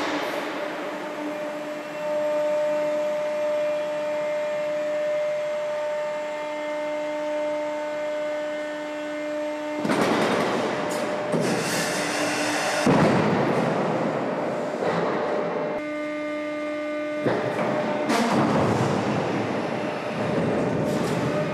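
Hydraulic landing gear test rig running as an A350 main landing gear is swung down: a steady multi-tone whine, broken by loud rushing hiss about halfway through and again near the end.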